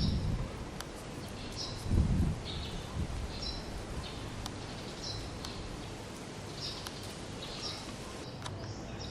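Small birds chirping, short high calls repeating about once a second over steady outdoor background noise, with a brief low rumble about two seconds in.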